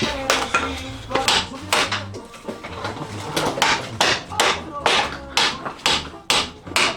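Hammer striking the stuck front axle of a Mitsubishi Lancer Evolution MR, a quick run of hard metal blows about two to three a second, trying to knock the seized axle loose. Music plays underneath.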